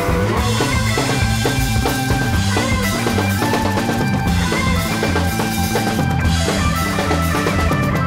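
Background music with a drum kit and a stepping bass line.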